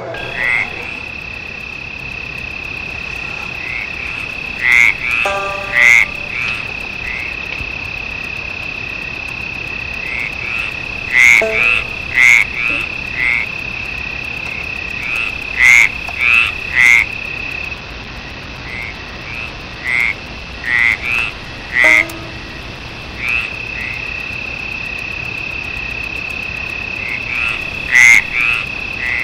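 Swamp-night ambience: frogs croaking in short, repeated calls that come in clusters, over a steady high insect trill.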